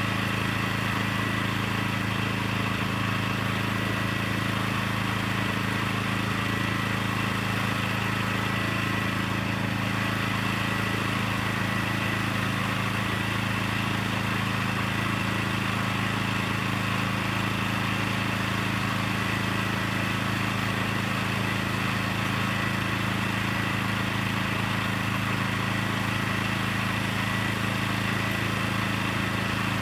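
Small gasoline engine running steadily at constant speed, with a thin high steady tone above its hum.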